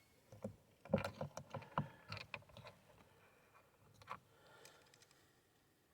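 Faint, scattered clicks and light knocks from handling a plastic door panel, screws and a hand tool, bunched in the first three seconds with one more click about four seconds in.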